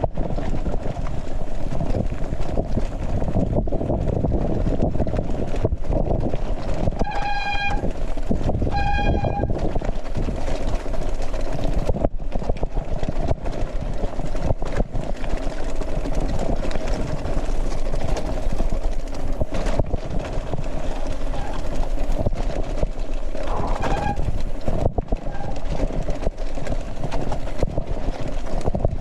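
Continuous wind rumble on the camera microphone and rattling clicks from a mountain bike riding fast downhill in heavy rain. A horn beeps twice, briefly, about seven and nine seconds in.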